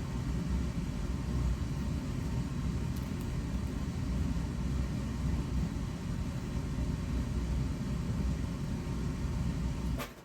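Steady low rumbling noise with no distinct events, cutting off suddenly near the end.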